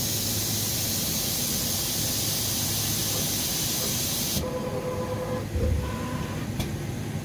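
IMES-ICORE CORiTEC 350i PRO 5-axis milling machine blowing compressed air at its spindle over the tool magazine, a steady loud hiss that cuts off suddenly about four seconds in. After it come faint whining tones, a thump and a sharp click.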